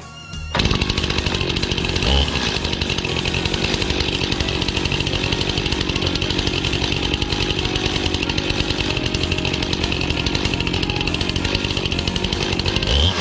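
Stihl two-stroke chainsaw, which comes in suddenly about half a second in, idling steadily while resting on the log guide, then revving up near the end as the cut begins.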